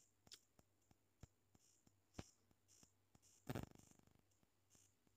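Faint, sparse clicks and pops of oil around kachoris frying on a very low flame, with one louder knock about three and a half seconds in.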